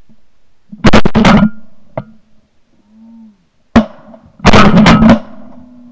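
Close shotgun shots, three loud blasts: one about a second in, then two more about three seconds later, just under a second apart.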